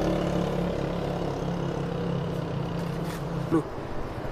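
A motor vehicle's engine running at a steady pitch, fading away and gone about three and a half seconds in; a couple of light clicks near the end.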